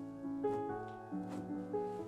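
Background music played on piano: gentle notes that ring and fade one after another.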